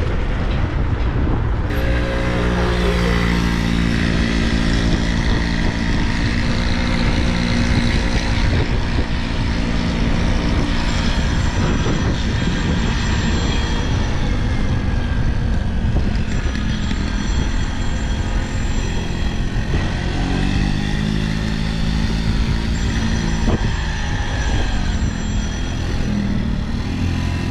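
A motor vehicle on the move: engine running under a steady road noise, its pitch drifting up and down as the speed changes.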